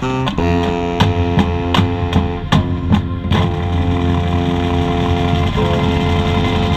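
Marching band playing loud held chords on brass and woodwinds, with a run of six sharp percussion hits about two and a half a second between one and three seconds in.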